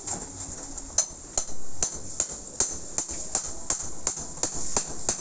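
Hammer striking nails into a wooden roof rafter, with steady blows about two or three a second.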